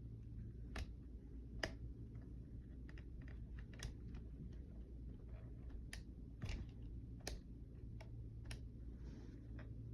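Light clicks at uneven intervals, about a dozen, from the radio-controlled analog alarm clock being handled and set, over a low steady hum.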